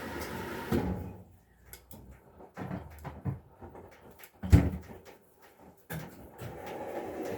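A steady household noise stops about a second in, followed by scattered knocks and one sharp thud about four and a half seconds in, like a cupboard or door being shut; the steady noise resumes about six seconds in.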